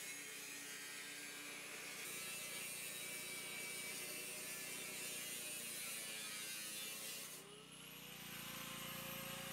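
Electric angle grinder with a thin cut-off disc, cutting steadily through steel sheet along a circular line. About seven seconds in, the cutting sound drops away and the motor's pitch rises as the disc comes free of the finished cut.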